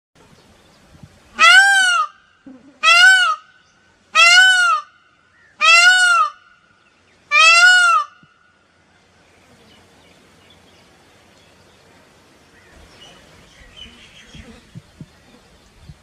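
Indian peafowl (peacock) calling five times in a row, loud nasal calls that each rise and fall in pitch, about a second and a half apart. The calling stops after about eight seconds, leaving faint background with a few light knocks.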